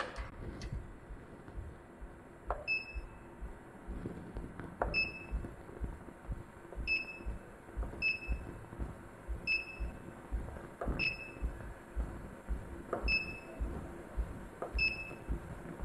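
Touchscreen control panel of a computerized flat knitting machine beeping as its on-screen buttons are pressed with a stylus: eight short single beeps of the same pitch, a second or two apart. Several of the beeps come right after a soft tap on the screen.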